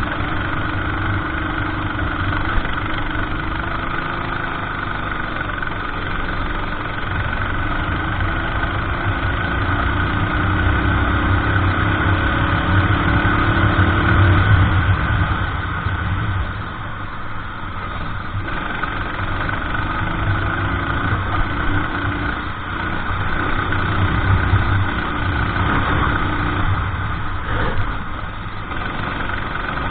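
Racing kart engine running hard around the track. Its pitch climbs for several seconds at a time along the straights and falls away when the driver lifts off for corners.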